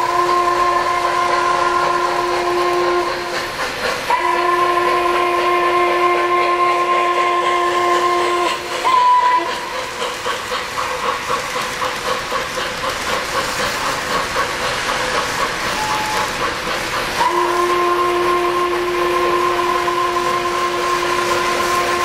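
O-gauge model train's sound system blowing a multi-tone chime whistle in long blasts: one at the start, a longer one about four seconds in, a short toot near nine seconds, and another long blast near the end. Between blasts the model train's wheels click steadily over the track joints as the cars roll past.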